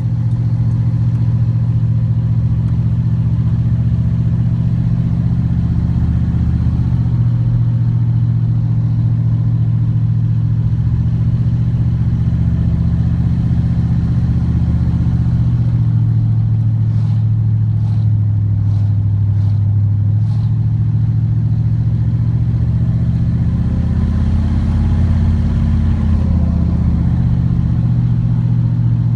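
A Corvette C3's V8 engine running steadily as the car drives along, heard from inside the car. Its note rises for a couple of seconds about three-quarters of the way through.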